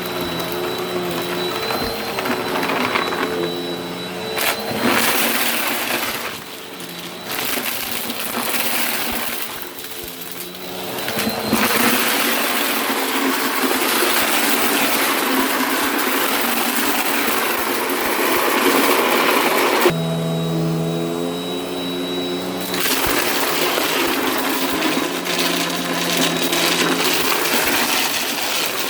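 Vacuum cleaner running with a steady motor hum and a thin high whine, crackling as it sucks up crunchy debris. The crackle thins out for a few seconds about six seconds in, then comes back strong.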